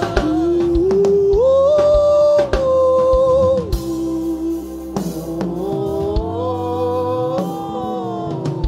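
A male worship leader sings a slow, wordless chant into a microphone. He holds long notes and glides between them over a sustained keyboard tone and soft kick-drum hits.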